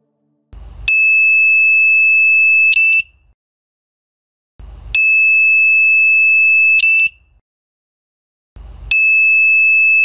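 Piezo buzzer of an Arduino door alarm sounding three long, loud, high-pitched beeps of about two seconds each, about four seconds apart: the alarm going off because the magnet has been pulled away from the magnetic reed switch.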